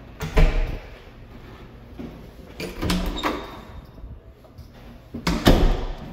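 A closet door being handled: a thud just after the start, the door opening about three seconds in with a brief squeak, and a louder thud near the end as it is shut.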